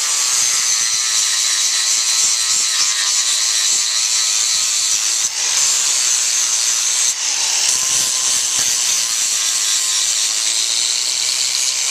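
Electric power grinder running steadily as it grinds down a horse's hoof wall at the heels, lowering the hoof height to balance the foot. The hiss of the disc on hoof horn dips briefly about five seconds in and again around seven seconds.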